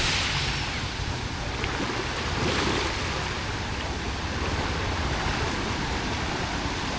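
Ocean surf washing onto the shore, swelling at the start and again about two and a half seconds in, with wind rumbling on the microphone.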